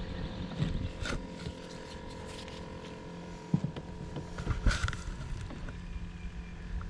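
A boat's motor humming steadily, its pitch shifting about halfway through, with a few sharp knocks and thumps from the boat.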